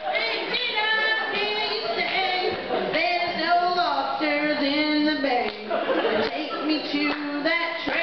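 A woman singing into a microphone, with acoustic guitar accompaniment, in a comic country-style song.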